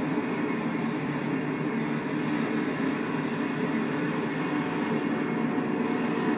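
Freight cars of a manifest train rolling past over a grade crossing, a steady rumble.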